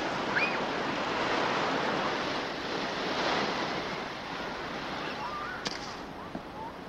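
Ocean surf breaking and washing up on a sandy beach, a steady rushing wash of noise.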